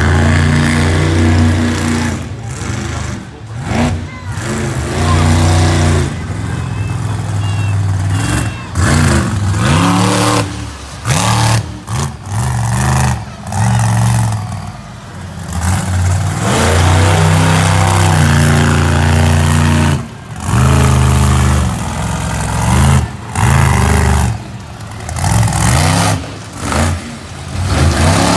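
Higher Education school-bus monster truck's engine revving hard, its pitch rising and falling as the throttle is worked. In the last third it comes in short bursts about every second and a half.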